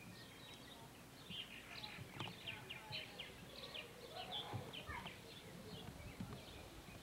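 Purple martins calling around their birdhouse: many short, high chirps, mostly sliding downward, coming thick and fast. Faint.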